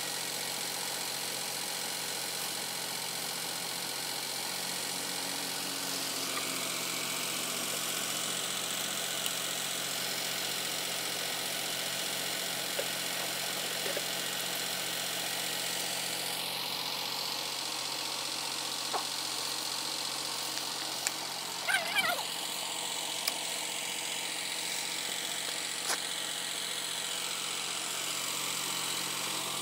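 A diesel engine idling steadily, an unchanging hum. A few short sharp clicks stand out about two-thirds of the way through.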